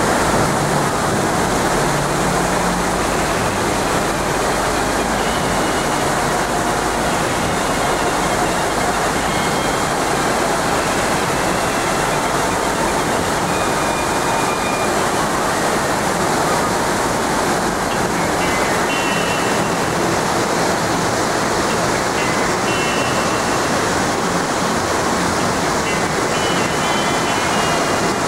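Fast mountain river rushing over rocks: a steady, loud rush of white water.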